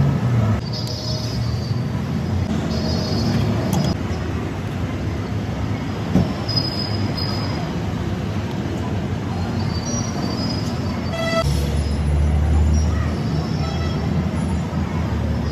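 Busy street noise: a steady rumble of traffic with background hubbub. About 11 seconds in there is a short, high pitched tone, like a horn or a squeal.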